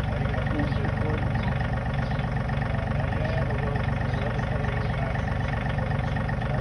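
Compact tractor's engine running steadily at idle, with a fast even pulse and no change in speed.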